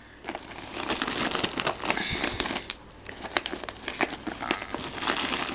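Plastic-wrapped first aid packets crinkling and a nylon kit pouch rustling as a hand rummages through a first aid kit, with irregular small clicks and rustles.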